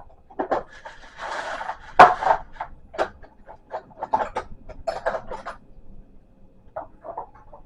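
Hand tools working on a treadmill frame: irregular clicks and knocks, with one sharp loud knock about two seconds in.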